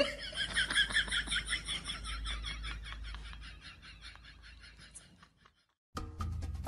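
A rapid run of short, high chirping pulses from an animal, several a second, fading away over about five seconds. Music starts near the end.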